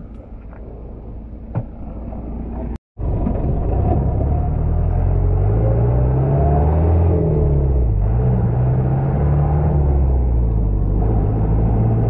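Old jeep's engine running as it is driven, cut off by a brief dropout about three seconds in, then louder, its pitch rising and falling as it is taken through the gears.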